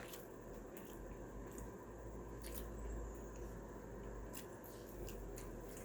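Faint eating sounds: a scatter of small, quiet clicks from chewing food, over a low steady hum.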